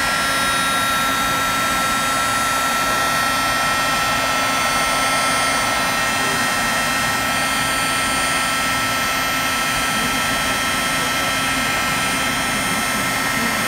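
Embossing heat gun running steadily: a rushing blow of air with a constant high whine, melting embossing powder on the edge of a panel.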